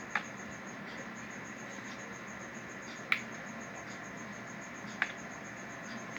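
Cricket chirping steadily in a fast, even, high-pitched pulse, with three sharp clicks: one just after the start, one about three seconds in and one about five seconds in.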